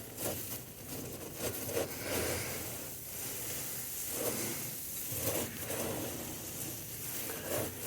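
Anthracite beans and clinker in a blacksmith's forge hearth being dug and raked aside around the tuyere, with repeated gritty scraping and rustling.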